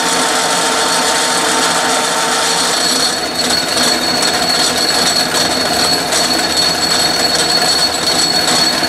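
Belt-driven Atlas metal lathe running under power during a threading pass in steel. About three seconds in, a high steady whine joins the running noise.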